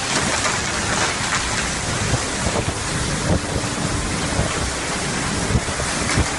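Storm wind buffeting the microphone over rough sea and breaking waves: a loud, unbroken rushing noise.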